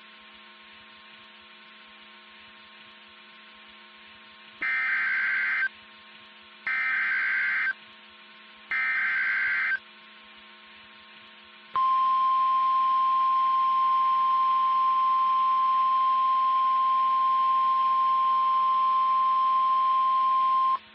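Emergency Alert System SAME header: three one-second warbling data bursts about two seconds apart over a steady radio hum. A few seconds later the NOAA Weather Radio 1050 Hz alert tone holds for about nine seconds, signalling that a warning message follows.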